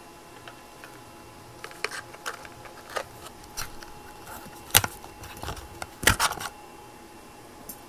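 Light scattered clicks and taps of small parts and objects being handled on a table, with two sharper knocks about five and six seconds in, over a faint steady hum.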